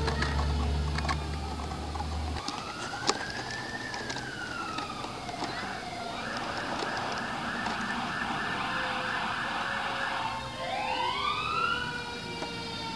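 Fire apparatus sirens responding: a heavy engine rumble cuts out about two seconds in, while a mechanical siren's slowly falling tone runs underneath. Over it an electronic siren wails up and down, switches to a fast yelp for about four seconds, then wails rising again near the end.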